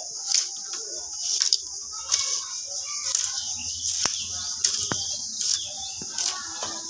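Thin bamboo strips being split apart by hand: a run of dry rasping strokes, irregular, about one every half second to second, with a couple of sharp cracks a little past the middle.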